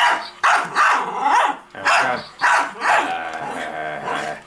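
Miniature schnauzer barking fast and excitedly at a robot dog toy, about seven sharp barks in quick succession, then a longer held sound before going quiet near the end.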